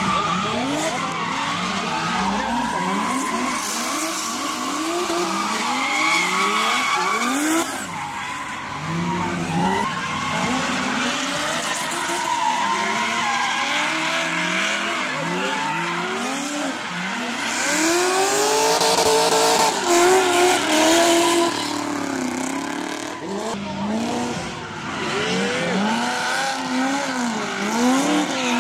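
Drift cars' engines revving up and down over and over as they slide, with tyre squeal and skidding noise underneath. A louder stretch comes about two-thirds of the way through.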